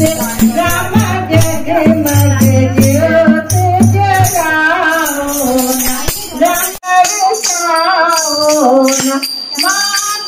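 Women singing a Hindu devotional bhajan to a jingling khanjani tambourine and the low beat of a dholak. The drum beat stops a little before halfway, and after a sudden cut near seven seconds the singing and jingling go on without it.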